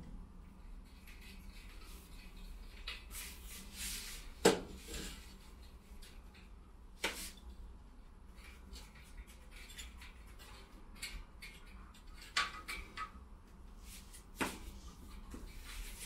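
Scattered light knocks, taps and rubs of hands and tools working against a balcony wall, with the loudest sharp knock about four and a half seconds in, over a low steady hum.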